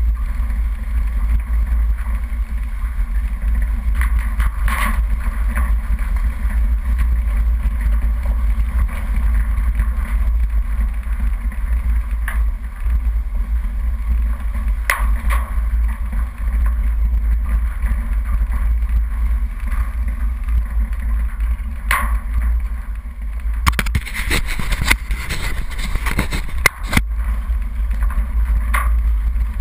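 Steady deep rumble of a 4x4 driving down a rough dirt track, picked up by a camera mounted on its bonnet. Scattered knocks and rattles come through, thickest near the end.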